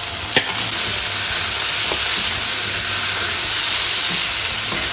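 Vegetables sizzling steadily in hot olive oil in a frying pan, with frozen peas, sweet corn and carrots just added. There is one sharp knock about half a second in, and a few faint ticks.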